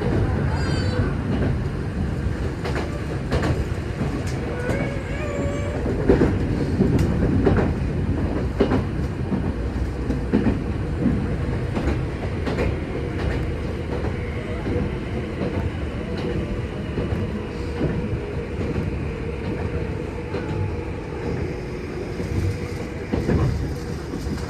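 Passenger train running along the track, heard from inside the carriage: a steady rumble with scattered knocks of the wheels over rail joints, and a faint high whine through the second half.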